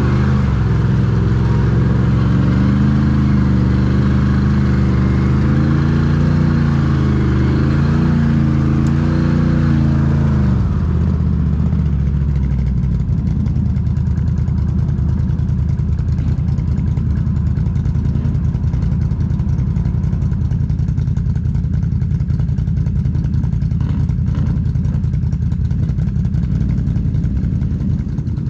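ATV engine revving, its pitch rising and falling for about ten seconds, then easing off to a steadier, lower running for the rest.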